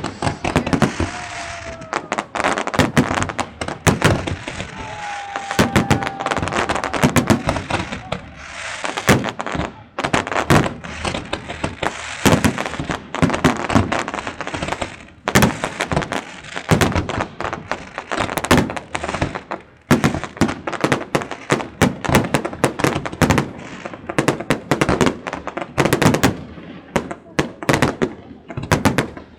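Fireworks display: shells bursting in rapid, irregular bangs and crackles with hardly a pause, with a couple of short whistles in the first few seconds.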